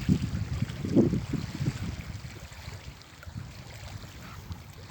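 Wind buffeting the microphone: an uneven low rumble that comes in gusts, strongest about a second in, then easing off.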